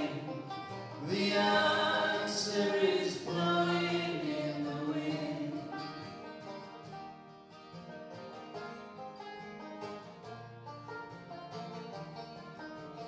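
Folk singing with banjo and acoustic guitar. The sung line ends on a long held note about five seconds in, and the banjo and guitar then play on alone, more quietly.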